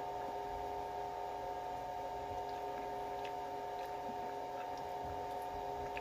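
A steady hum with several fixed tones, like mains or appliance hum, runs under a few faint soft clicks and squishy sounds of someone eating.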